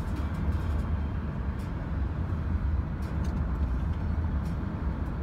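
Steady low drone of a car driving on the road, heard from inside the cabin: engine and tyre noise.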